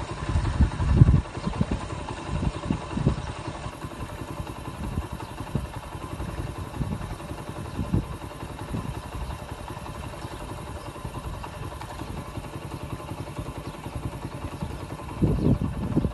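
Strong gusty wind from a nearby dust-laden landspout buffeting the phone's microphone, an uneven low rumble that surges about a second in and again near the end, with a faint steady tone underneath.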